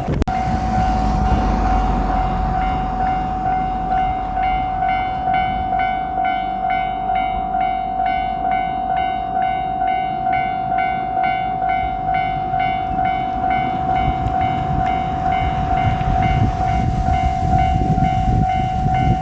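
Japanese railway level-crossing warning bell ringing on, a rapid repeating electronic clang over a steady tone. Under it, the low rumble of a JR Shikoku 2700 series diesel express railcar fades over the first few seconds, and a low rumble builds again near the end.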